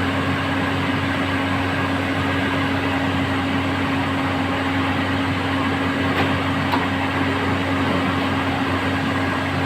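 Volvo backhoe loader's diesel engine running steadily at constant speed, a low even drone.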